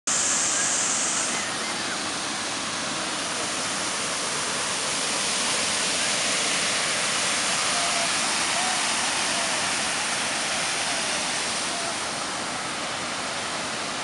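Jägala waterfall: a wide curtain of water pouring over a rock ledge, a steady rush of falling water. A brief high hiss sits on top for about the first second.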